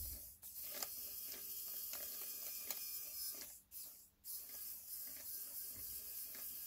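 N20 micro gear motor (200 rpm gearmotor) running on a 2S 7.4-volt battery, spinning a scale axle and wheel: a steady geared whir that cuts out briefly about half a second in and again for about half a second around four seconds in.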